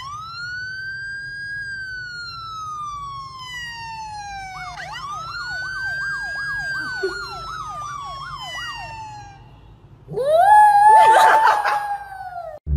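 A siren wailing: a quick rise and a long slow fall, then another rise with a fast warble, about three wobbles a second, laid over it, falling away again. About ten seconds in, a louder, rougher wail rises, holds and drops near the end.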